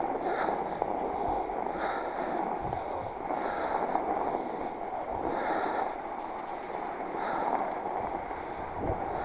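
Northrock XC00 fat bike's wide tyres rolling through fresh snow: a steady rushing noise mixed with wind on the microphone, with a short hiss that comes back about every one and a half to two seconds.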